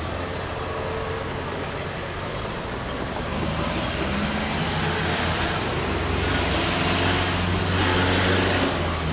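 Several cars driving past close by one after another, with an engine hum throughout and tyre noise that swells as each car goes by, louder in the second half.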